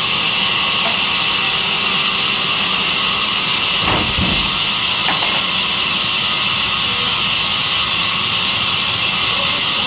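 Sawmill saw machine running steadily with a loud, even hiss. There is a single knock about four seconds in and a fainter one about a second later.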